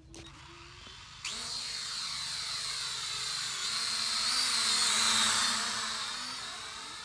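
Small quadcopter drone's motors starting up abruptly about a second in, a high buzzing whine from the propellers that grows louder, then fades as the drone flies off.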